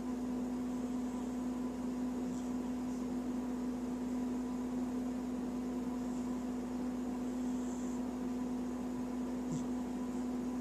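A steady electrical or mechanical hum, like an appliance or fan running, unchanging in pitch and level, with a few faint ticks.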